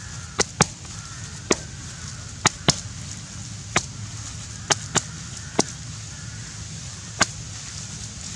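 Knife chopping on a cutting board: about ten sharp strikes at an uneven pace, some in quick pairs.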